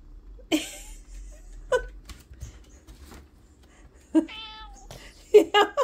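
Domestic cat meowing: one meow about four seconds in, then three quick short chirping meows near the end. The owner takes the calls for asking for food and treats.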